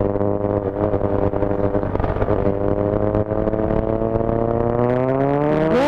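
Motorcycle engine running under way. Its pitch holds fairly steady, climbs as the bike accelerates over the last few seconds, and drops sharply near the end as it shifts up a gear. Low road and wind rumble runs underneath.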